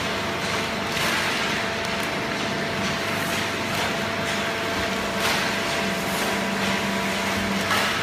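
Horizontal baler and its chain conveyor running: a steady machine hum with a few held tones over a constant hiss. Several brief clattering rustles of waste paper break through it.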